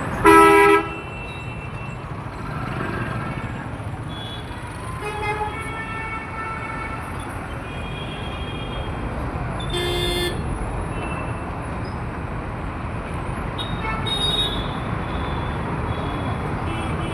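Road traffic: a steady rumble of engines and tyres, with vehicle horns honking. A loud short horn blast comes right at the start, and shorter honks follow several times.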